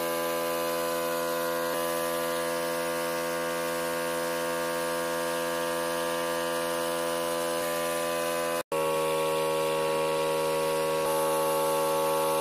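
Compressed-air paint spray gun hissing as it sprays, over the steady hum of the air compressor. The sound breaks off for an instant about two-thirds through and resumes with a slightly different hum.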